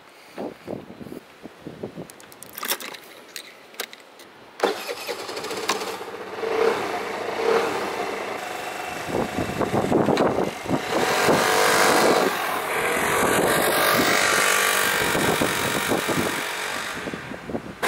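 A few clicks and knocks, then about four and a half seconds in a Vespa scooter's single-cylinder engine starts with a sudden jump in level and runs. It grows louder and steadier from about ten seconds in as the scooter is ridden off.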